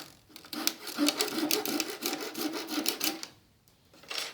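Hacksaw blade cutting off the protruding end of a glued wooden plug flush with the board, in quick back-and-forth rasping strokes that pause briefly near the end.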